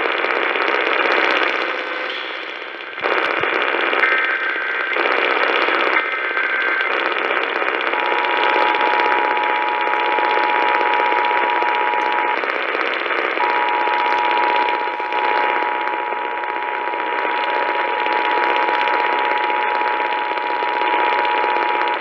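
An EAS Required Monthly Test received on AM through a Voyager Pro radio's speaker, under heavy static hiss. A few short bursts of warbling SAME header data tones come first. Then the two-tone Emergency Alert System attention signal sounds, breaking off for about a second midway.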